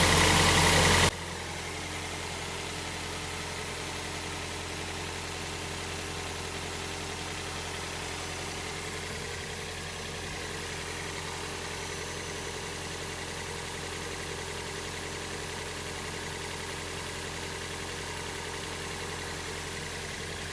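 Steady hum of a second-generation Toyota Prius's electric inverter coolant pump running in ready mode, circulating coolant. A much louder sound cuts off abruptly about a second in.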